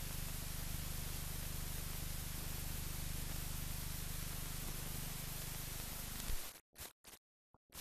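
Steady hiss over a low hum, the noise of an old silent newsreel film transfer with no soundtrack. It cuts off abruptly about six seconds in, leaving a few brief crackles.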